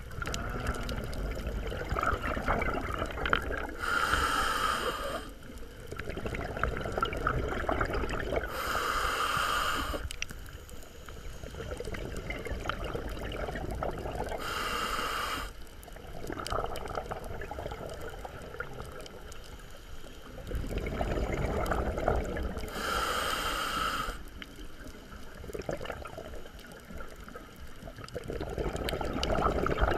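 Scuba diver breathing through a regulator underwater: four short hissing inhales, several seconds apart, each followed by a longer rumble of exhaled bubbles.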